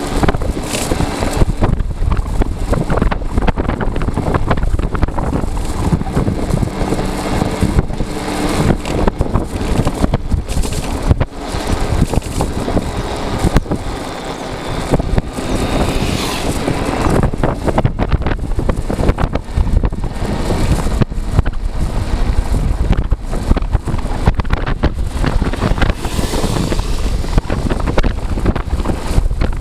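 Wind buffeting the microphone, with road and tyre noise from a moving electric scooter: a loud, uneven, gusty rush. It dips briefly about fourteen seconds in.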